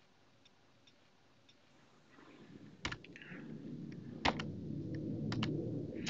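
Near silence for about two seconds, then a low room hum fades in, with a few sharp, separate clicks over it: one about three seconds in, another a second and a half later, and two close together near the end.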